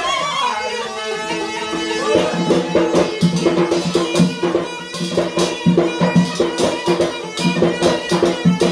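Yemeni folk dance music: a mizmar reed pipe plays a melody that dips in pitch about a second in. From about two seconds in, a large drum and a metal tray struck as percussion join in a fast, steady beat.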